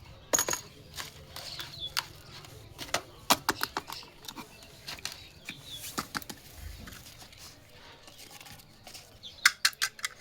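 Plastic toy pieces and packaging being handled during an unboxing: irregular light clicks and taps over soft rustling, with a quick run of sharper clicks near the end.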